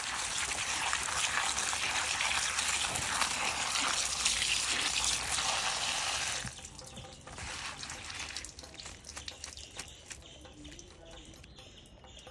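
Water running and splashing as leaves are rinsed. It stops abruptly about six seconds in, leaving fainter drips and small splashes.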